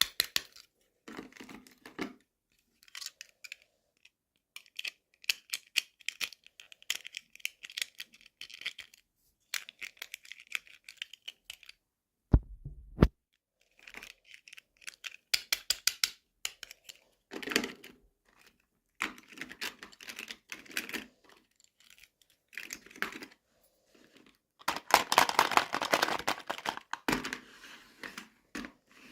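Toy packaging being unboxed by hand: irregular clicks and taps, with spells of crinkling and tearing plastic and paper, the longest and loudest near the end. A single dull thump about twelve seconds in.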